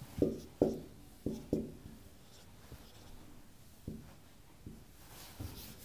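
Marker pen writing on a whiteboard: a quick run of short strokes in the first two seconds, then a few more, spaced out, near the middle and the end.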